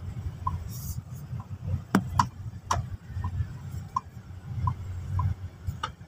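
Uneven low rumble of a car driving along a rough road, heard through an open window, with a few sharp clicks around two to three seconds in and short faint high chirps now and then.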